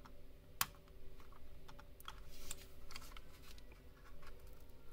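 Fingernails scratching and picking at the plastic underside of a wireless computer mouse, peeling off its adhesive glide pads: a run of small scratches and clicks, with one sharper click about half a second in.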